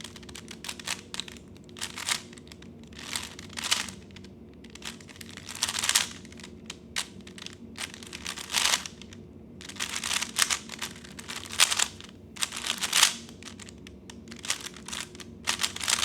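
3x3 Rubik's cube being turned fast in a speedsolve: runs of rapid plastic clicking and clacking as the layers turn, broken by short pauses.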